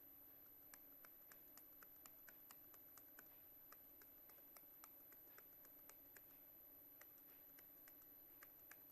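Faint, light clicks, about two or three a second, over a quiet steady electrical hum.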